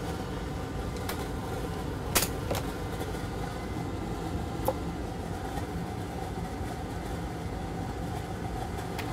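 A steady mechanical hum like a fan or blower running, with a few faint clicks about two and about four and a half seconds in.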